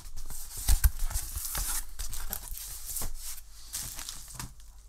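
Cardboard box being pulled open by hand: flaps tearing and scraping, with a couple of sharp knocks about a second in, then quieter rustling of the packing inside.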